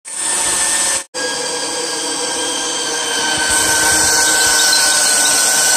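Electric power tool running steadily with a motor whine, used in woodworking, with a brief break about a second in.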